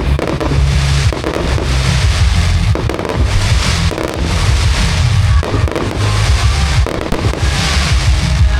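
Fireworks show: shells bursting one after another with deep booms and crackling, over music playing alongside.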